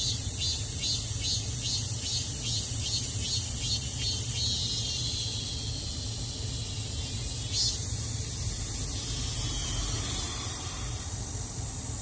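Cicadas calling: a high pulsing call of about three beats a second gives way, about a third of the way in, to a steady high buzz that grows louder about two-thirds in and cuts off shortly before the end. A low rumble runs underneath.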